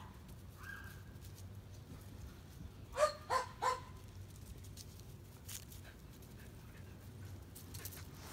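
Sheltie giving three quick, high yaps in a row about three seconds in, each dropping slightly in pitch.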